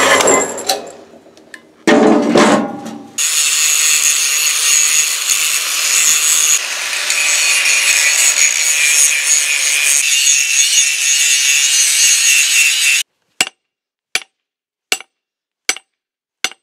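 Steel plate being ground with a power tool for about ten seconds: a loud, steady hiss with a high whine. It follows two short bursts of machine noise and is followed by five sharp knocks about three-quarters of a second apart.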